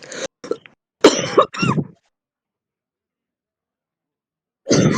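A person's smoker's cough: four short coughs in quick succession, the last two loudest, then a pause before another burst begins near the end.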